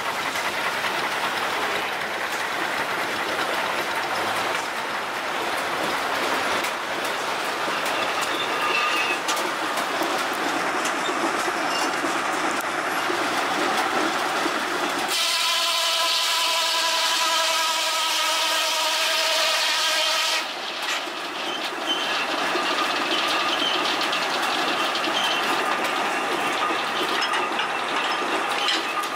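Belt-driven sawmill running: the large circular saw blade, powered by a long flat belt from a Case steam traction engine, and the clattering log carriage make a steady mechanical din. About halfway through, a steady high whine of several notes at once holds for around five seconds, then the clatter resumes.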